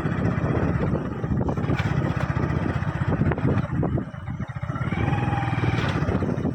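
Motorcycle engine running at a steady, rapid beat while riding along a rough track.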